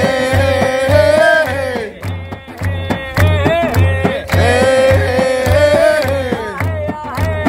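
A Nubian traditional song sung live over a hand drum beating about twice a second, with people clapping along. The melody wavers and runs in phrases, and there is a short dip about two seconds in.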